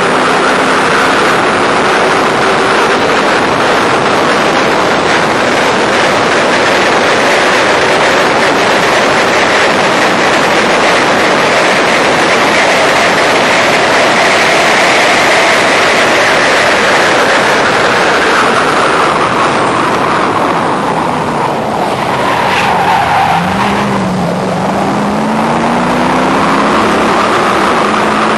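Factory Five roadster race car's V8 engine running hard under throttle, heard from the cockpit with wind rushing over the microphone. The engine note climbs to a peak about halfway, falls away as the driver comes off the throttle about two-thirds of the way through, blips on a downshift, then climbs again as he accelerates.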